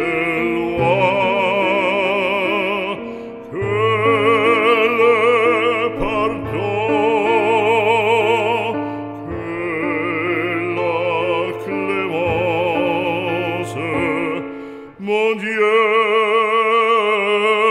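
Operatic solo voice singing a French sacred hymn in long held phrases with wide vibrato, over instrumental accompaniment. A sustained low bass note lies under the middle of the passage.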